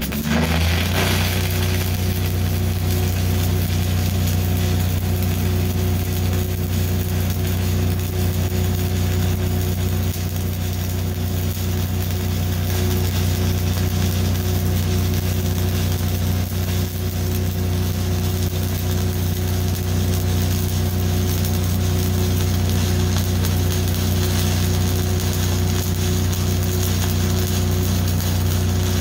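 Stick (SMAW) welding arc burning continuously on steel, a steady crackle and hiss over the constant low drone of the welding machine.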